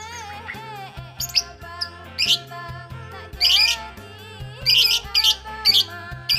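Baby lovebird giving a string of short, harsh chirps at irregular intervals, louder than the background music.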